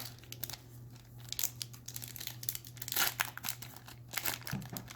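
Crinkling and crackling of a foil trading-card booster pack being handled and opened, with cards being shuffled through, in quick irregular crackles that bunch up about three seconds in and again near the end.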